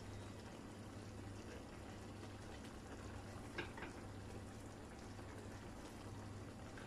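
Sauce simmering faintly in a stainless steel pan while stuffed cabbage rolls are laid into it by hand, over a low steady hum, with a small click a little over halfway through.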